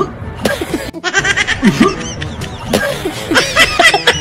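A woman and a man laughing in short, pulsing bursts that grow livelier and higher in the second half.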